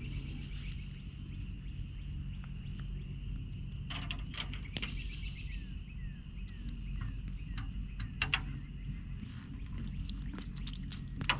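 Outdoor ambience: birds chirping in short falling calls over a steady low hum, with a few sharp clicks.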